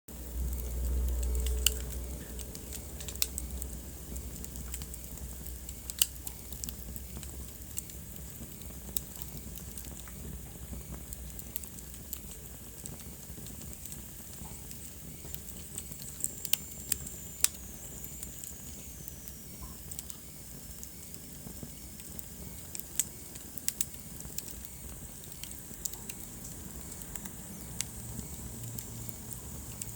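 Wood fire burning in a fireplace: irregular sharp crackles and pops over a steady low rumble of the flames. The rumble is louder for the first couple of seconds, and a faint high whistle falls in pitch midway.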